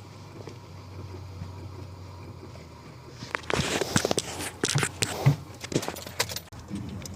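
The sound of a 2013 Chevy Equinox's 2.4 L Ecotec four-cylinder that won't start, as the car is tried: a steady low hum, then an irregular run of sharp clicks and knocks from about three seconds in.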